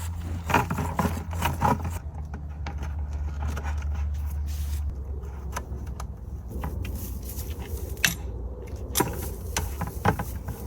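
Steady low hum of an idling engine, with scattered clinks and scrapes of plumbing fittings being handled.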